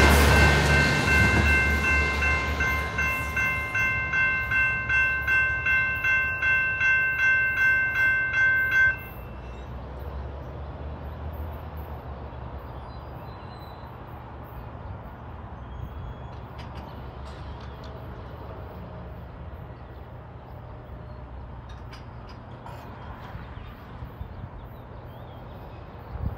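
A SMART diesel multiple-unit train passes, fading over the first few seconds, while General Signals Type-2 electronic crossing bells ding about twice a second. The bells cut off suddenly about nine seconds in, the sign that the crossing gates are starting to rise.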